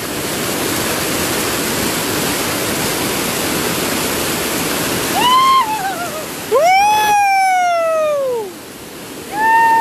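Waterfall swollen with muddy floodwater after heavy rain, a steady rush of falling water. From about five seconds in, three long high calls sound over it; the middle one is the loudest and slides down in pitch.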